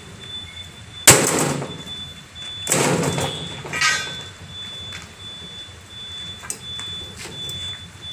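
Wire-mesh metal panels of a composter frame clanging and rattling as they are handled, with a sharp clang about a second in and a second clatter about three seconds in.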